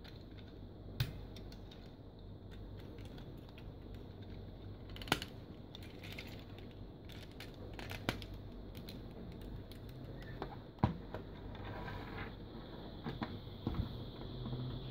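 Plastic clicks and taps as the parts of a bootleg Transformers Cybertron Optimus Prime figure are handled and moved, with a few sharper clicks scattered among many small ones, over a faint steady hum.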